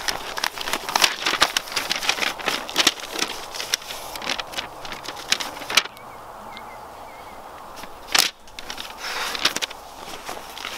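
Clothing and a leather jacket rustling and crinkling as hands rummage through the pockets of a person lying on the ground, with paper being handled. Dense crackling rustles go on for about the first six seconds, then a quieter stretch, then a sharp rustle about eight seconds in and more rustling near the end.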